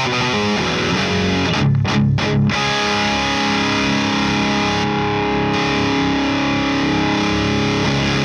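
Distorted electric guitar played through a Friedman Runt 50 tube amp, driven by a boost pedal. It plays a fast picked riff, then a few short choppy chugs about two seconds in, then a chord left ringing.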